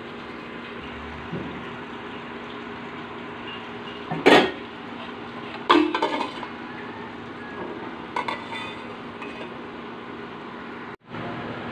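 Stainless steel pot and lid clanking against each other, with a loud metallic clank about four seconds in, another a second and a half later, and lighter clinks near eight seconds. A steady hiss runs underneath.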